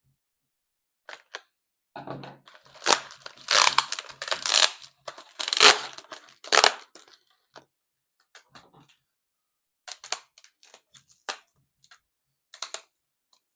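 Bubble-wrap packaging being pulled and torn open by hand: bursts of crinkling and ripping plastic about two to seven seconds in, then a few scattered short clicks and taps.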